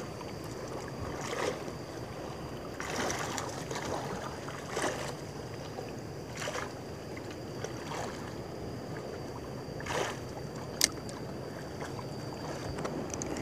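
Sea water lapping and slapping against a small outrigger boat's hull and floats, with wind on the microphone. A few soft splashes come every second or two, and a single sharp click comes about eleven seconds in. A faint steady high tone runs underneath.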